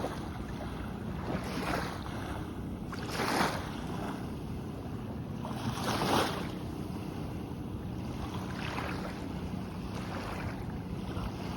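Small waves washing onto a sandy beach: a steady hiss of surf with louder washes every two to three seconds, the loudest about three and six seconds in.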